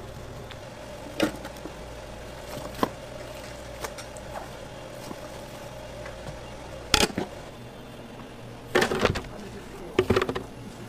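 Food-prep handling noises on a cutting board: a few sharp knocks and clatter, the loudest about seven seconds in and two short flurries near the end, over a steady hum.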